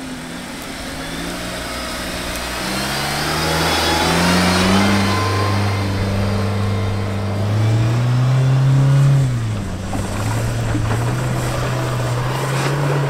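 Petrol Mahindra Thar's turbocharged four-cylinder engine revving hard under load as the stock 4x4 climbs a steep dirt slope. The revs rise through the first half, peak, fall sharply about nine seconds in, then hold steady.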